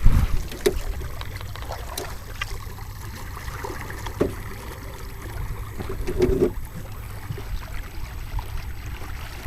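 Steady low rumble of wind and water around a small boat, with water trickling and lapping against the hull. A few light knocks and faint, brief distant voices.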